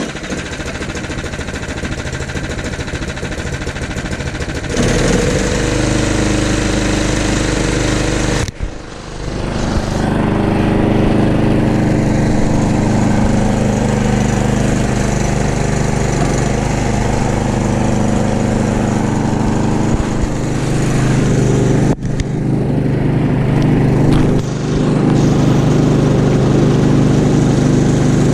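Toro Power Max 724 OE two-stage snowblower's single-cylinder engine running steadily on a test run, getting louder about five seconds in, with a brief drop near the ninth second.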